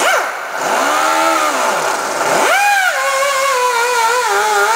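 Pneumatic sanding-drum grinder whining as it grinds a ribbed reinforcing bar flat. Its pitch dips and recovers a few times under load, then holds fairly steady and drifts slowly lower near the end.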